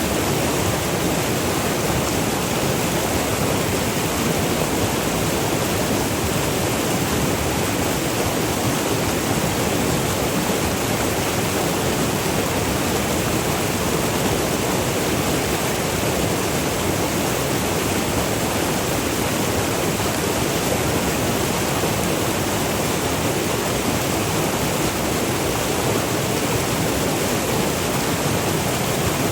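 River water rushing over small waterfalls in a steady, unbroken roar.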